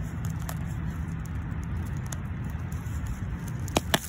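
Hand trowel digging and scraping through wood-chip mulch and soil, with faint crackling. Two sharp clicks come close together near the end.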